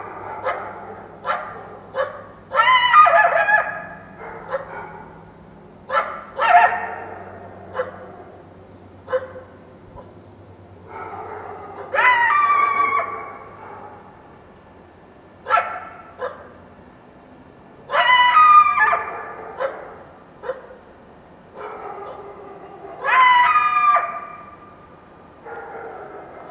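Wild coyote yelping: short, sharp yips in between longer calls that fall in pitch, one every five or six seconds.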